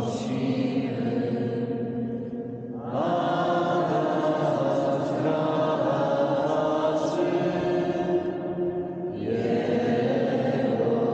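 A group of voices singing slow, long-held notes in a stone church with a long echo. One phrase fades about three seconds in and a new one begins; another fades and starts again about nine seconds in.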